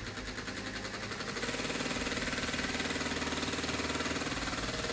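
Cordless drill spinning the crank of a mostly 3D-printed single-piston air compressor, the motor running steadily and the piston pumping in a fast, even rhythm as it fills a soda-bottle tank with compressed air. The sound steps up in level about a second and a half in, as the drill gathers speed.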